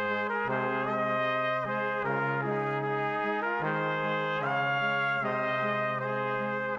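Brass ensemble music of trumpets and trombones playing slow, sustained chords that shift every second or so.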